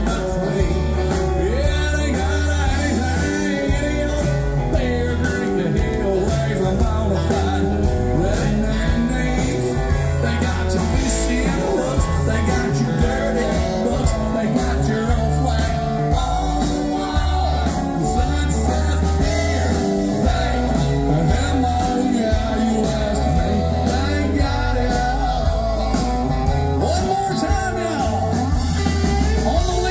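Live country rock band playing loudly through a PA, with a male lead singer, electric guitars, bass and a steady drum beat.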